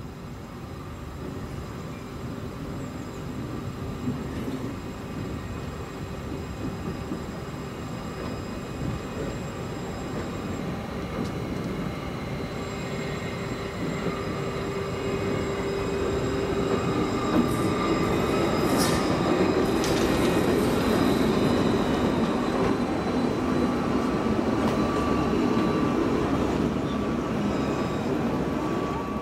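Tram approaching and passing close through a curved track junction. Its running gear gives a steady rumble under several held high tones, from motor whine and wheel squeal on the curve. It grows louder into the second half, with a few sharp clicks about two-thirds of the way through.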